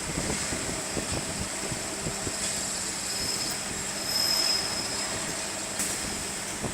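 Four-way servo drilling machine for universal joint crosses running, with a steady high whine from the spindles over irregular low knocks and clatter.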